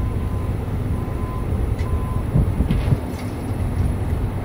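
Steady low rumble of a ferry's engines running under way.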